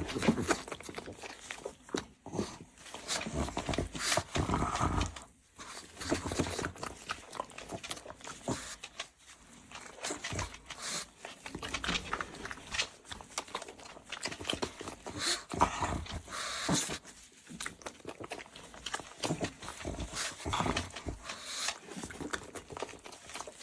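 A pug making a run of short, irregular noisy sounds.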